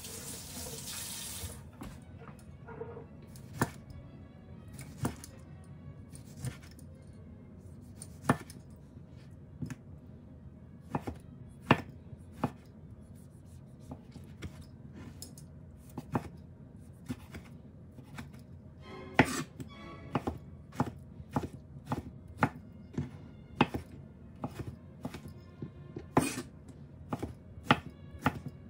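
Chef's knife cutting a tomato on a wooden cutting board: sharp taps of the blade hitting the board, spaced out at first and coming faster and closer together from about two-thirds of the way in as the tomato is diced. A short hiss comes at the very start.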